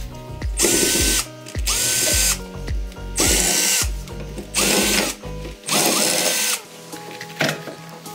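Cordless drill/driver run in five short bursts, its motor whining up to speed each time, driving screws into the metal gear housing of an angle grinder.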